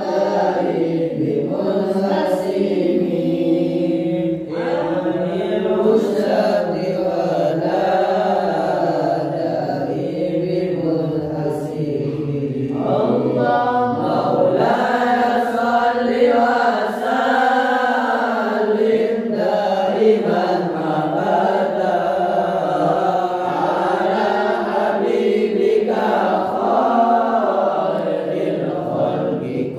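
Male voices, men and boys, chanting Arabic sholawat (devotional praises of the Prophet) unaccompanied, in a slow wavering melodic line that carries on without pause.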